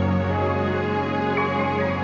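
Background music: slow, gentle new-age style, sustained chords.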